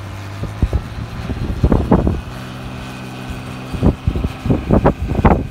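Engines of a John Deere tractor and an older wheel loader running steadily while plowing snow, a second engine note joining a little over two seconds in as the loader draws near. Wind buffets the microphone in irregular gusts, several of them near the end.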